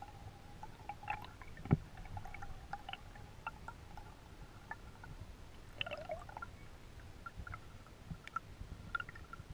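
Underwater sound picked up by a GoPro in its waterproof housing: a muffled low rumble of water with scattered clicks and ticks and a faint steady tone. One sharp knock stands out about two seconds in.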